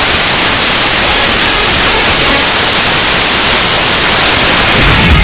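Loud, steady white-noise hiss like television static, even and unchanging. Heavy rock music starts in near the end.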